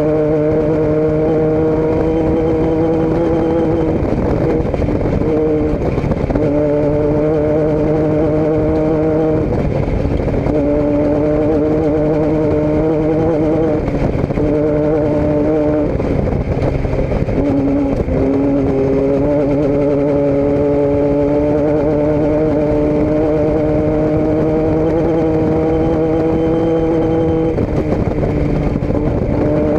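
A motor vehicle engine running at a steady, constant pitch, broken by brief dips every few seconds.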